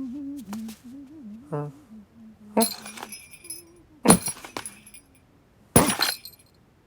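Cartoon sound effects: a low hummed or murmured voice, then three sharp clattering knocks with a glassy ring, the last near the end.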